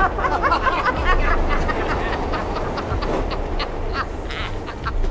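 Men laughing and hooting raucously in short cackling bursts, dense at first and then more broken, over the steady low rumble of a subway car.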